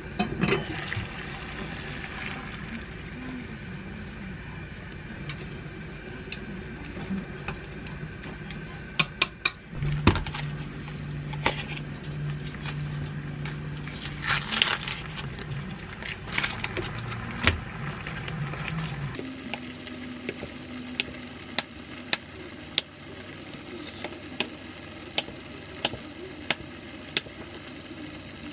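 Kitchen work in three cut-together parts: a pot lid clinks at the start, a steady low hum runs through the middle while the plastic package of mung bean jelly (cheongpomuk) is opened with a rustle, then a kitchen knife slices through the soft jelly and taps the wooden cutting board about once a second near the end.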